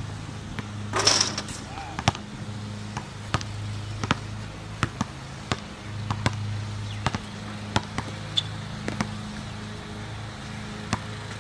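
Basketball bouncing on an outdoor hard court during one-on-one play: sharp bounces about two a second at an uneven pace, with a brief burst of noise about a second in as a shot reaches the hoop. A steady low hum runs underneath.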